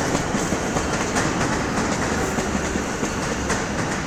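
A seven-car High Capacity Metro Train (HCMT) electric suburban train rolling into the platform, with a steady running noise. Its wheels click irregularly over the rail joints and pointwork.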